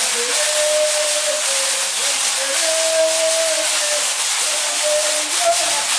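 Patangome shakers (metal-disc shakers filled with seeds) rattling in a steady, dense hiss, with voices singing long held notes over it.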